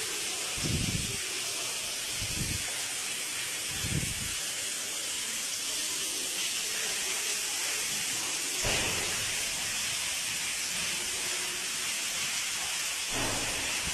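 Rainwater pouring through a leaking roof and splashing down a concrete stairwell: a steady, hissing rush of falling water. A few dull low thumps sound over it.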